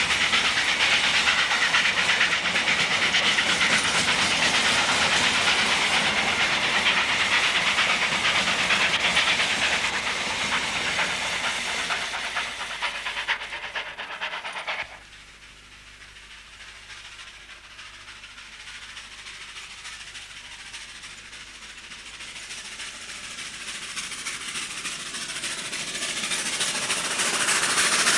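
South African Railways class 25NC 4-8-4 steam locomotive working hard with a heavy grain train, its exhaust and the train's running making a loud, dense hissing chuff. The sound fades, drops off sharply about halfway through, then builds again steadily as the train comes closer.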